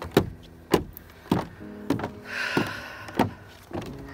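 Footsteps on wooden stairs and decking: about six evenly spaced steps, a little over half a second apart.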